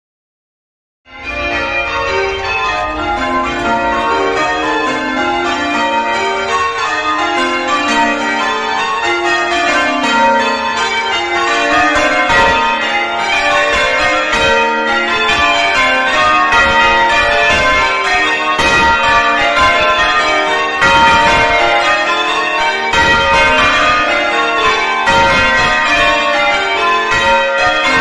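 A ring of cathedral tower bells, hung on wheels, rung full circle in English change ringing and heard close up in the bell chamber: many bells strike one after another in a continuous, loud, ringing sequence. The ringing starts suddenly about a second in.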